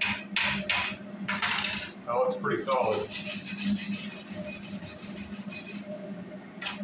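Hand wire brush scrubbing slag off a fresh flux-core weld bead on a metal plate. Separate strokes come first, then quick continuous scrubbing from about three seconds in. A steady low hum runs underneath.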